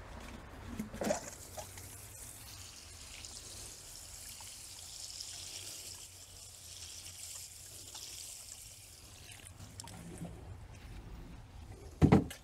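Water pouring steadily from a plastic watering can into a compost bucket of wet shredded paper, cardboard and food scraps, for several seconds. A single sharp thump near the end.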